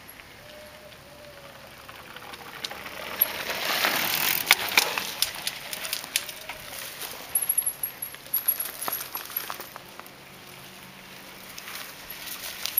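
Mountain bike riding over a cedar plank bridge and dirt trail and passing close. The tyre noise swells to a peak about four to five seconds in, with a quick run of clattering knocks, then fades as the bike rides away, leaving scattered clicks and rattles.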